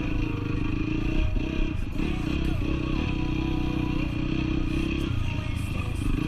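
Honda CRF dirt bike engine running steadily while being ridden, with brief dips in revs between one and three seconds in and a drop to a lower note about five seconds in.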